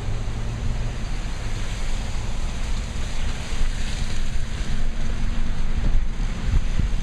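Wind buffeting the microphone in an uneven low rumble over a steady rushing hiss.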